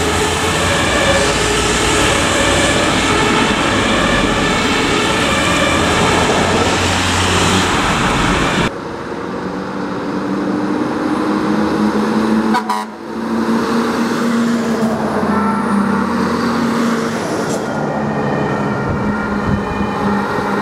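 German fire engines on emergency runs, two-tone sirens alternating over diesel engine noise. The loud siren stops abruptly about nine seconds in, and the rest holds quieter engine noise with siren tones from other approaching fire engines.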